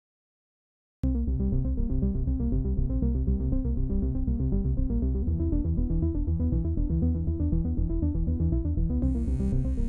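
Electronic synthesizer music starting abruptly about a second in out of silence, with a heavy steady bass and quick repeating notes; a beat of high hissing percussion strokes joins near the end.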